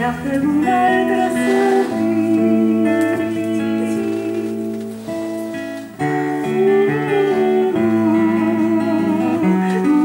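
A woman singing with her own acoustic guitar accompaniment, the voice holding wavering notes over the guitar.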